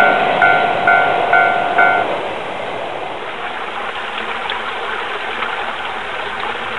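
Railway level-crossing warning bell ringing about twice a second, stopping about two seconds in. After it, steady low background noise with faint clicks.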